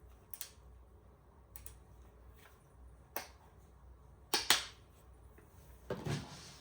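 Camera gear being handled on a table: a few separate clicks and taps, the loudest a double knock about four and a half seconds in.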